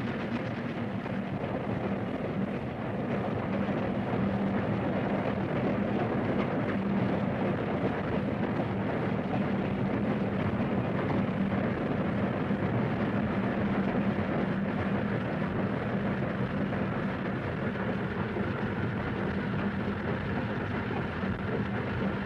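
Steam train running steadily after pulling away: a continuous rumble and rush with a steady low hum, no separate chuffs standing out.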